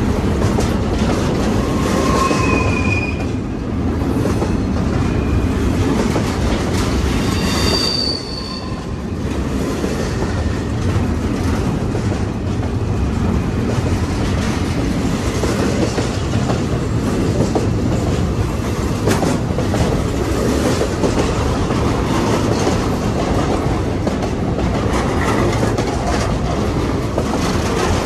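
Double-stack intermodal freight train's well cars rolling past close by, a steady loud rumble and clatter of wheels on rail. Brief high wheel squeals sound a couple of times in the first ten seconds.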